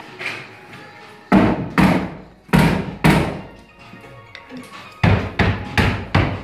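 Music with a strong beat: loud percussive hits about half a second apart, coming in pairs and then a quicker run near the end.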